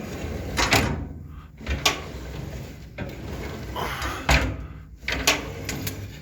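Lift-up door of a wood-burning fireplace being slid on its counterweight mechanism, with several knocks and clunks.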